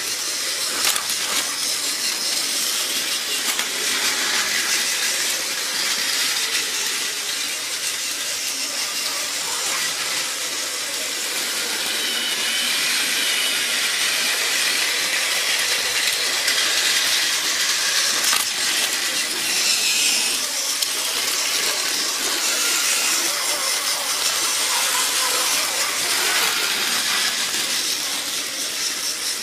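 Battery-powered toy trains, a TOMY Trackmaster Thomas and a Plarail Amtrak, running on plastic track: a steady high whirr of their small motors and gears, with light clicking of wheels over the track.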